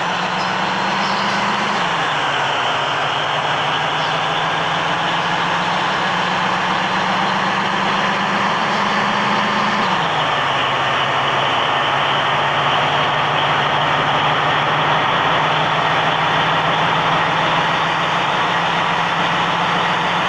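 A heavy vehicle's engine running while on the move, with a dense wash of road and mechanical noise. The engine's pitch steps down twice, about 2 seconds in and about 10 seconds in.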